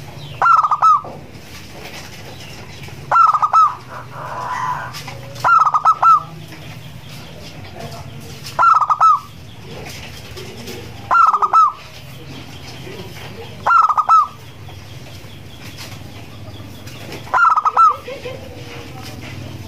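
Zebra dove (perkutut) cooing: seven short rippling coos, each a quick run of notes, coming about every two to three seconds over a low steady hum.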